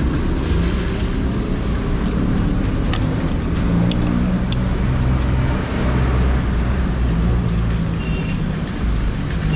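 Steady low rumble of a motor vehicle engine and road traffic close by. A few light metallic clinks, about three to four and a half seconds in, fit a knife and fork striking a metal sizzling plate.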